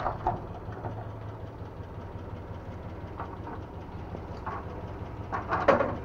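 An engine idling with a steady low hum, with a few light clicks and knocks; the loudest of them come about five and a half seconds in.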